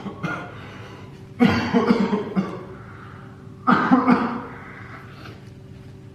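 A man coughing and gasping for breath in two short bouts, winded from high-intensity dumbbell exercise.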